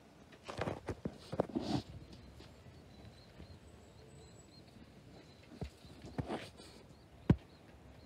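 Scattered knocks and rustling, with a quick run of them in the first two seconds and one sharp knock about seven seconds in.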